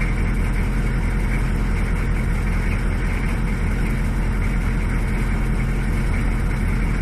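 Diesel engine of a Chevrolet Suburban idling steadily, with an even low hum that does not change.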